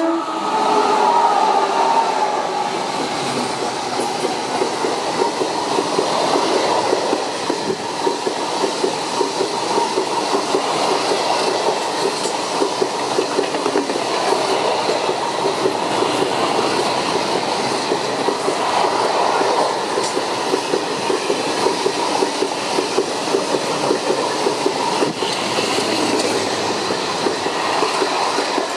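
Container freight train hauled by a Renfe class 269 electric locomotive passing close by at speed. The long string of container wagons goes by with a steady rush and continuous clatter of wheels over the rails.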